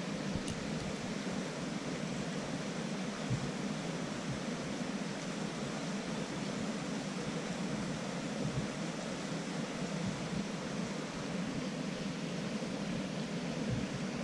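Steady rushing of a small creek's flowing water, with a few brief low thumps.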